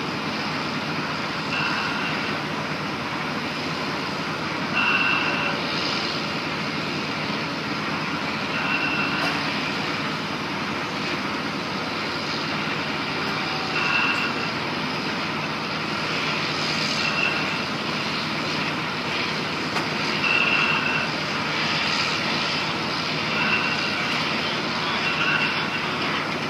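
Steady drone of heavy construction machinery running, with short high-pitched chirps recurring every few seconds at uneven intervals.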